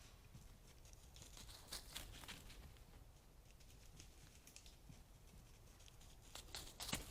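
Near silence with faint, scattered rustling crackles, more of them close together near the end.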